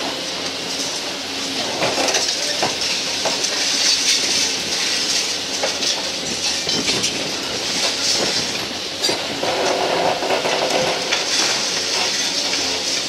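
Diesel demolition excavator (CAT 320D-based Hybrid Cosmo 2000) working a crusher attachment through concrete rubble and rebar: steady engine and hydraulic hiss with scattered clanks and knocks of steel and broken concrete.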